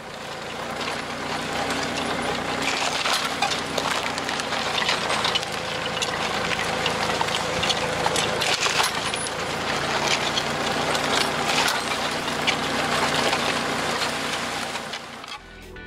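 Tractor engine running steadily while a tractor-mounted sensor-controlled disc hoe's small discs cut through stony, weedy soil, with frequent sharp clicks and rattles from stones.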